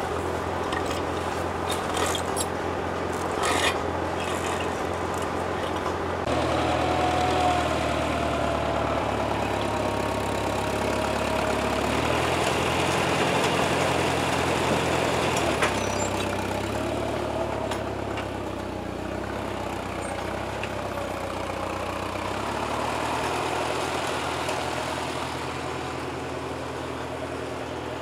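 Farm tractor engine running, growing louder about six seconds in as the tractor comes close, then fading as it moves away.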